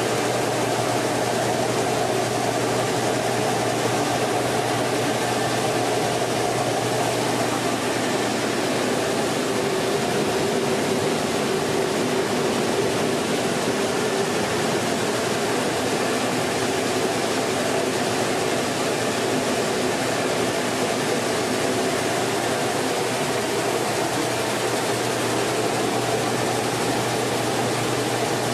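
Mini rice mill machinery running steadily, a continuous mechanical drone with a constant low hum, as milled grain streams from the outlet chute.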